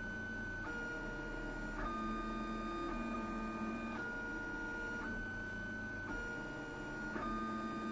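Lulzbot TAZ 6 3D printer's stepper motors whining as the print head moves. Several steady tones jump to a new pitch about once a second, with each new segment of the move. It is laying down the first outline of the print, a skirt that checks the filament is feeding.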